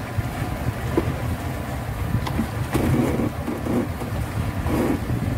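Wind buffeting the microphone on an open boat under way, a rough low rumble with the wash of water under the hull.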